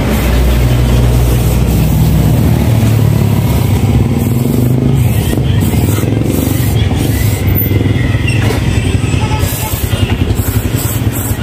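An engine running steadily, a low drone that holds through the whole stretch.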